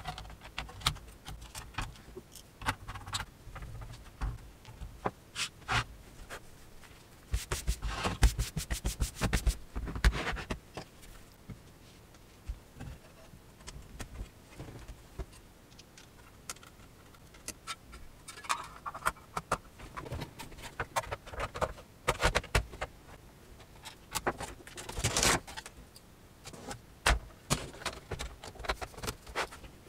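Clicks, knocks and rattles of thin sheet-metal and plastic parts of a Samsung Syncmaster 225BW LCD monitor being handled and fitted together during reassembly, with a few dense runs of clatter, the longest about eight to ten seconds in.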